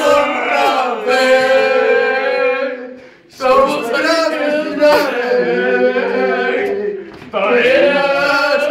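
A group of young men singing a football fan chant a cappella, in long held notes, with short breaks between phrases about three and seven seconds in.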